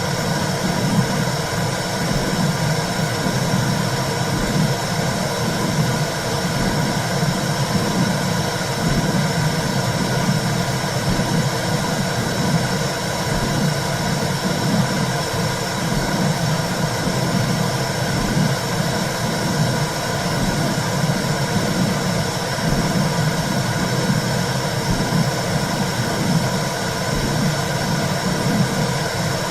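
Womb sound for soothing a baby: a steady whooshing hiss over a low rumble that pulses rhythmically, like blood flow and a heartbeat heard from inside the uterus.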